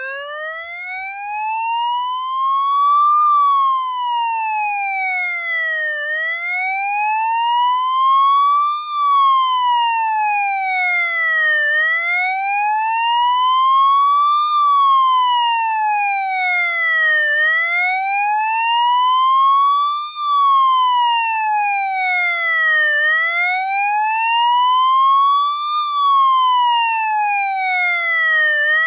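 Police siren on its wail setting: one tone slowly rising over about three seconds and falling back, about five times in a row.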